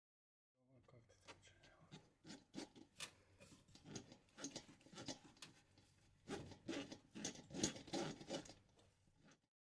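Faint, irregular scratching and rubbing made up of many small clicks and scrapes, growing louder about six seconds in and stopping shortly before the end.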